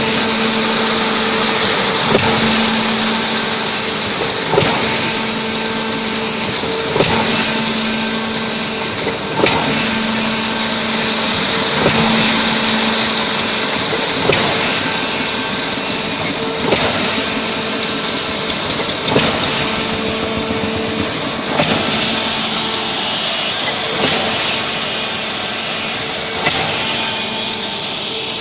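Concrete pump running: a steady engine and hydraulic drone, with a sharp knock about every two and a half seconds as the pumping cylinders change stroke.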